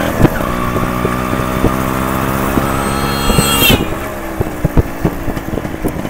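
Yamaha RX100's two-stroke single-cylinder engine running steadily under way, heard close to its chrome silencer. Its pitch rises briefly a little past halfway, then the engine sound drops and turns rough, with scattered thumps of wind on the microphone.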